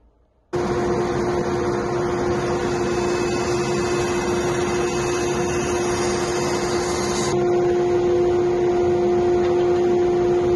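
Bandsaw running and cutting through a walnut board: a steady machine drone with a strong hum under a broad hiss. It starts suddenly about half a second in, and the highest part of the hiss drops away about seven seconds in.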